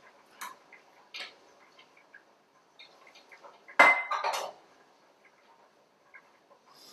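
Scattered light knocks and clinks of kitchenware as a saucepan is emptied into a tall measuring container and an immersion blender is set into it, with one loud knock about four seconds in.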